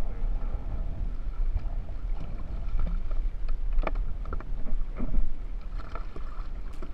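Wind rumbling on an action camera's microphone over water lapping at a jet ski, with a few sharp knocks and taps from a remora being handled on the jet ski's plastic deck.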